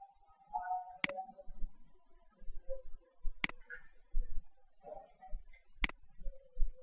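Three sharp computer clicks, about two and a half seconds apart, from the pointer button as a print dialog is opened and a printer is picked.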